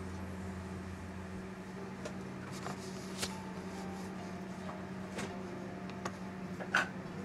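A steady low hum of room tone with a few scattered light clicks and taps; the sharpest tap comes near the end.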